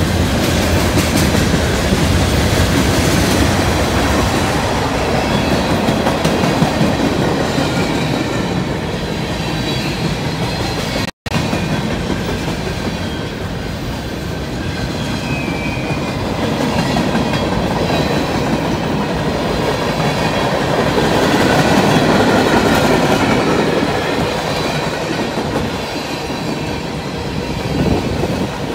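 Freight train cars rolling past close by: a steady rumble and clickety-clack of steel wheels on the rails, with faint high wheel squeal. The sound drops out for a split second about eleven seconds in.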